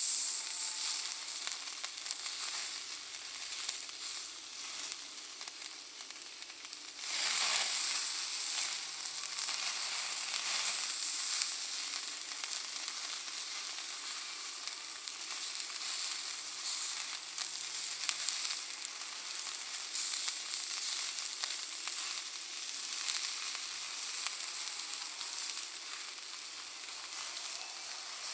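Charcoal and wood fire crackling and hissing with a dense patter of small pops, from Iwate cut charcoal with cherry wood added for smoke. The hiss swells louder about seven seconds in.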